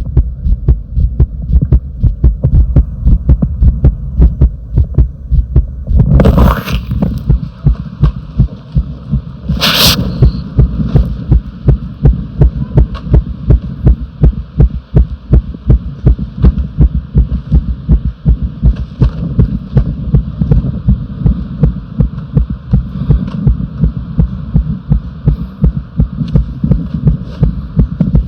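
Human heartbeat recorded close up, deep thumping beats repeating in a steady rhythm, with two brief loud scraping noises about six and ten seconds in.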